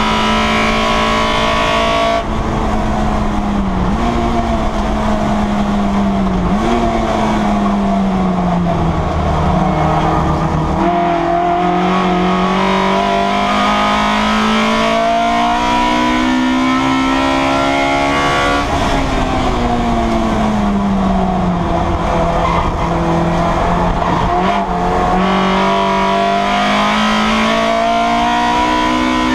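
Citroën Saxo race car's four-cylinder engine heard from inside the cabin, its revs falling and rising as the car slows for corners and accelerates. Quick jumps in pitch about four, seven and eleven seconds in mark gear changes, followed by a long steady climb in revs and another fall and rise near the end.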